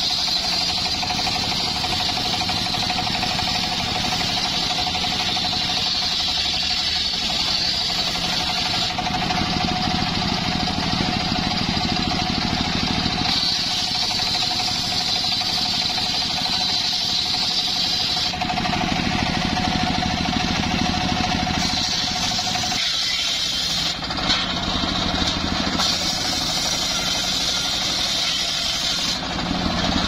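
Homemade circular sawmill with a large blade ripping a log lengthwise, a steady high whine over the running motor. The sound shifts back and forth between a higher and a lower tone every four to five seconds as the cut goes on.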